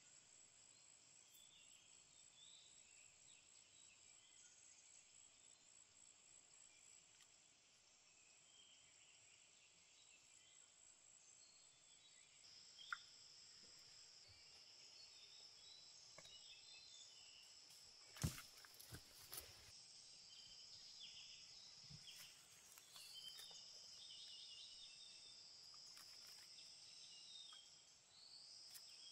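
Faint insect chorus: a steady high-pitched buzz, joined about halfway by a second, slightly lower insect buzz that stops and restarts a few times. A few faint sharp clicks fall partway through.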